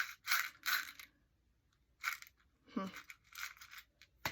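Paper being handled: several short bursts of rustling and crinkling.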